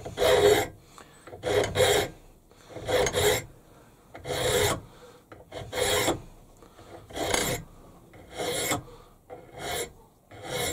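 Flat hand file rasped across a metal engine cylinder casting clamped in a bench vise, in eight long, even strokes about one and a half seconds apart, dressing off casting flash.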